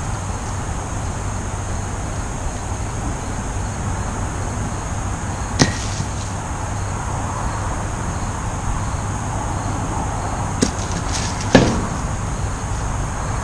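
Three sharp wooden knocks as thrown kubb batons land among the wooden kubb blocks on the lawn: one about six seconds in, then two close together near the end, the last the loudest.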